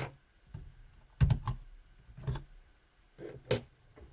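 A handful of short, sharp clicks and taps of small hard parts being handled: a laptop RAM module being released from its spring clips and lifted out of its slot.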